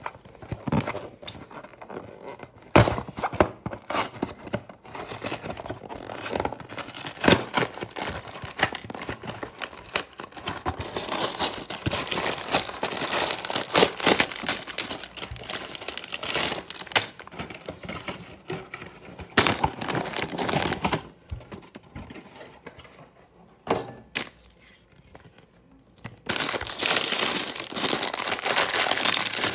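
Clear plastic bags of LEGO pieces being handled and opened out of their box: crinkling and tearing plastic with sharp knocks. It goes quieter for a few seconds near the end, then the loud crinkling of a bag starts again.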